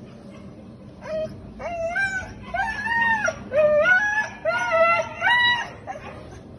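A dog howling and whining in a run of about eight short, wavering calls that rise and fall in pitch.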